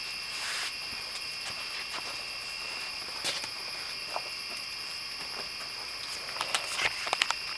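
Steady, high-pitched chorus of night insects holding two even pitches, with a brief rustle about half a second in and a few sharp clicks near the end.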